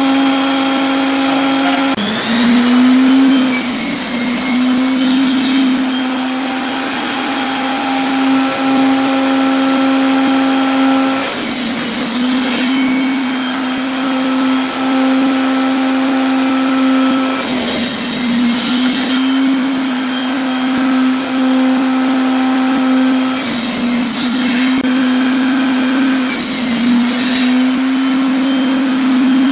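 Table saw running with a steady hum from its spinning blade, crosscutting pine into small blocks. Each cut brings a burst of rasping hiss, about five times, and the hum wavers under the load.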